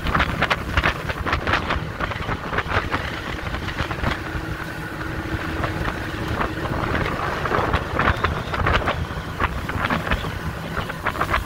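Outboard-powered skiff running at speed across the water: a steady engine rumble under heavy wind rushing over the microphone, with frequent short slaps of water against the hull.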